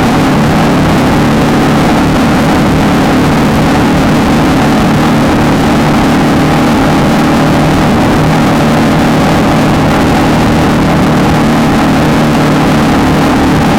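Volkswagen Beetle desert race car's air-cooled flat-four engine running steadily and hard at a near-constant pitch, loud throughout.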